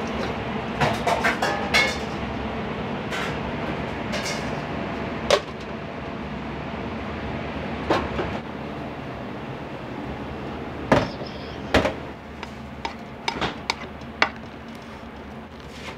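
Kitchen prep clatter: irregular knocks and clinks of utensils, containers and cupboards being handled, over a steady background noise.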